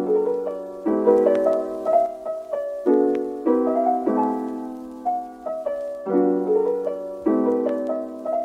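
Background piano music: a gentle tune of struck notes and chords, each fading away after it is played.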